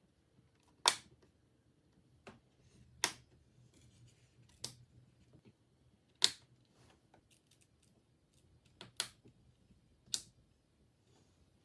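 Sharp clicks and light knocks of hands handling computer hardware, about eight of them at irregular intervals, with a close pair near the three-quarter mark.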